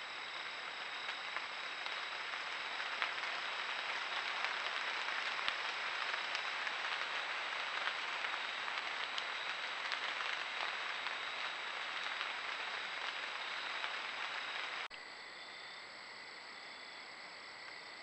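Night woodland ambience through a trail camera's microphone: a steady even hiss with scattered faint ticks. About 15 seconds in it cuts off abruptly, leaving a quieter background of crickets chirping steadily.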